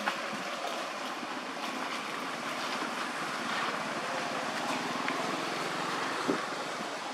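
Steady, even outdoor background hiss with no clear single source, broken by one short click about six seconds in.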